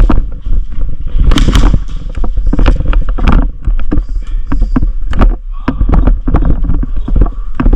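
Body-worn GoPro camera jostled during play: heavy low rumble of wind and handling on the microphone, with many irregular knocks and clicks of gear and movement.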